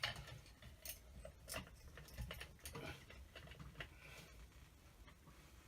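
Faint scattered clicks and light rattles of small metal and plastic ceiling-fan parts being handled as the switch cap is lined up and fitted to the fan's switch housing.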